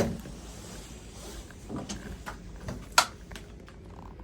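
A few knocks and clicks: a thump right at the start, some light ticks, and one sharp click about three seconds in.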